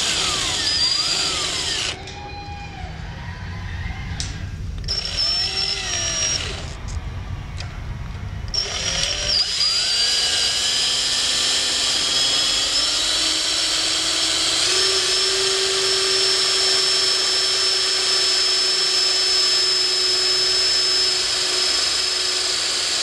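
Cordless drill-driver driving a self-drilling tech screw through an insulated clip into a frame tube, clutch set at 11: a few short runs of the motor with its whine rising and falling, then one long steady run from about eight seconds in, its pitch stepping up near fifteen seconds.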